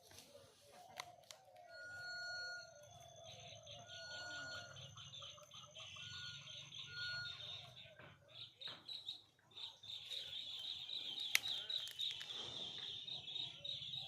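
Chickens clucking and calling, over a high, rapid chirping that starts about three seconds in and carries on.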